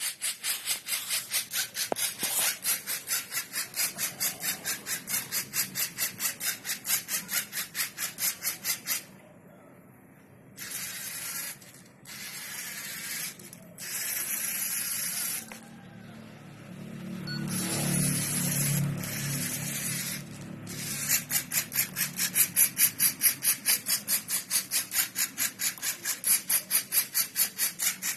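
LEGO Mindstorms NXT robot's servo motors whining in short, rapid pulses several times a second as the line-following robot jerks along a black line. About a third of the way in the pulsing gives way to longer, uneven stretches of motor whine, and the rapid pulsing returns near the end.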